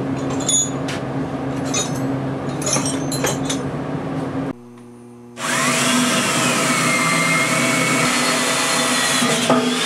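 Electric drill cutting into steel, its motor humming steadily. About halfway it stops cutting for a moment, then bites again, louder, with a wavering high whine. The bits are dull.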